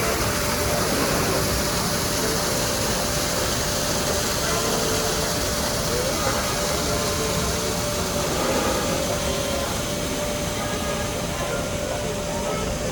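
Steady rushing, churning noise aboard the Mark Twain sternwheel riverboat under way: the paddlewheel working the water and the boat's machinery running, with a faint steady hum.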